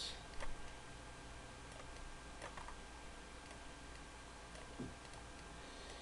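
A few faint, isolated computer mouse clicks, spaced a couple of seconds apart, over a steady low hum and hiss of room tone.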